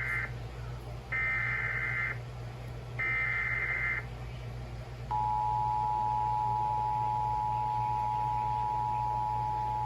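Emergency Alert System signal: three short bursts of digital SAME data tones, each about a second long and a second apart. About five seconds in, a steady alert tone begins and holds unbroken.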